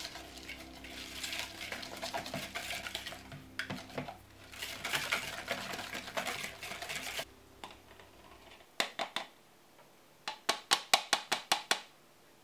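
Wire whisk scraping and clinking around a glass mixing bowl, beating a soft butter-and-egg mixture for a pâte sucrée. After a short pause come a few metal clicks, then a quick run of about eight sharp clicks of the metal mesh sieve on the bowl as flour is sifted in.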